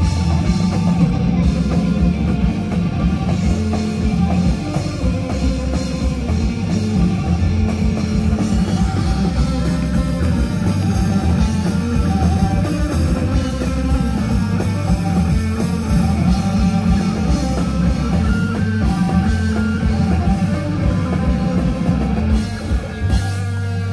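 Live rock band playing loudly: electric guitars over a drum kit. Near the end the full band drops away, leaving a low note ringing on.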